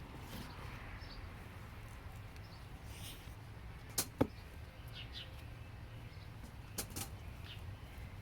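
A few sharp knocks or clicks: two close together about halfway through, the second the loudest, and two more near the end, over faint, scattered bird chirps.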